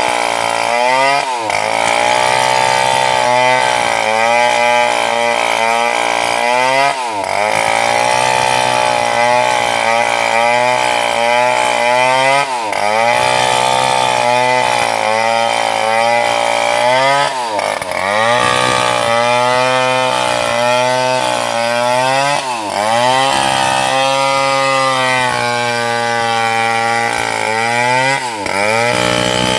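Large two-stroke chainsaw, a Stihl 070, running at full throttle while ripping lengthwise through a big sengon log. The engine pitch repeatedly sags as the chain bogs in the deep cut and then climbs back up.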